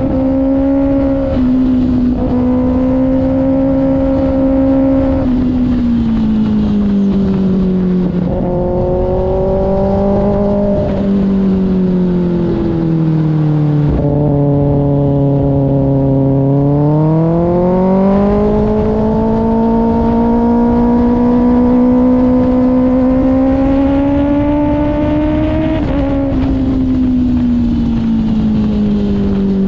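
Kawasaki ZX-6R inline-four engine with an IXIL aftermarket exhaust, running at high revs with a steady note. Its pitch drops in steps in the first half, sits lowest about halfway through, then climbs back up and holds before easing off near the end.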